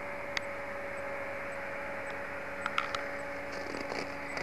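A distant two-stroke snowmobile engine running as a faint, steady hum under camcorder tape hiss, growing slightly louder near the end, with a few small clicks.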